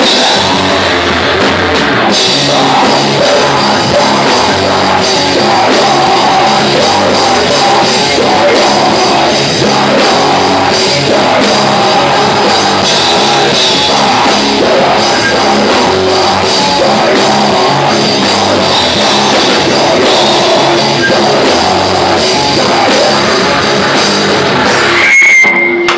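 Live heavy metal band playing loud: electric guitar, bass and drum kit, with vocals. The music stops abruptly about a second before the end.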